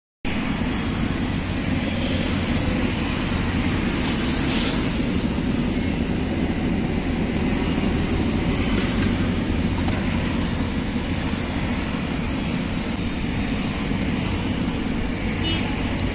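Steady street noise: a low traffic rumble under a constant hiss.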